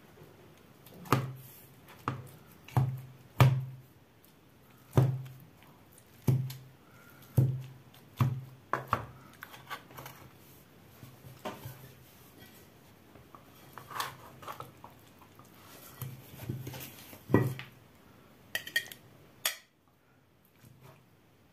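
Slotted metal spatula cutting through a baked casserole and knocking against the bottom of a metal baking tray: sharp knocks, roughly one a second and irregularly spaced.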